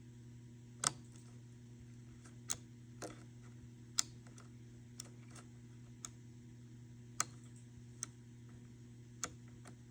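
Sharp small clicks, about one a second and somewhat unevenly spaced, over a low steady hum.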